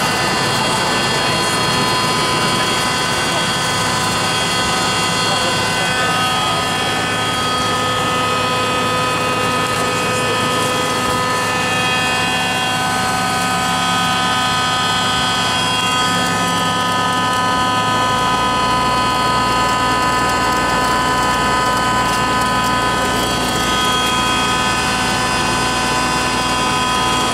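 Single-engine propeller aircraft's engine and propeller running steadily, heard from inside the cabin while taxiing, with a steady whine of several high tones. A deeper low rumble comes in about two-thirds of the way through.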